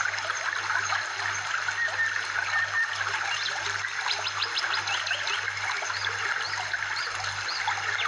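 Trickling, flowing stream with birds chirping in quick series of short high calls, over a soft low throb.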